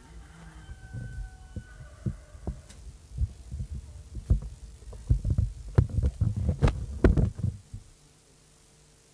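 Irregular low thumps and knocks of handling noise on a boom microphone, some with a sharp click, thickest in the middle and dying away near the end.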